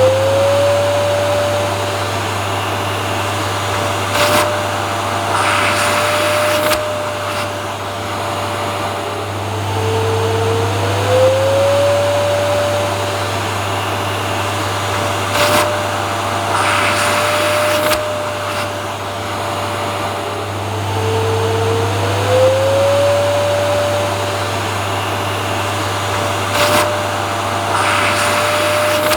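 Vacuum cleaner running steadily, a constant low hum under a motor whine. About every eleven seconds the whine glides up in pitch and settles, and there are a few brief sharp clicks.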